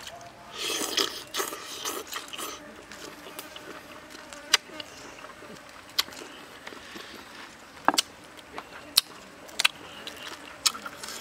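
A person eating squid with chili dipping sauce: a loud slurp about a second in, then chewing and sharp clicks of a spoon and bowl against the plate, scattered through the rest.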